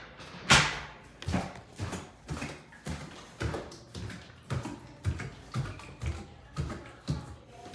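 Footsteps going down wooden stairs and onto a hardwood floor, a steady series of knocks about two a second; the first, about half a second in, is the loudest.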